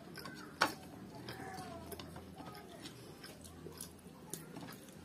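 Fingers wiping a plate and eating by hand: scattered small ticks and clicks, with one sharp click about half a second in.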